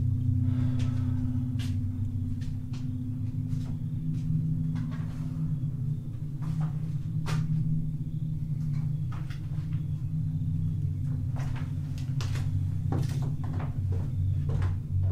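A low, steady drone with scattered knocks and creaks over it: tense film sound design.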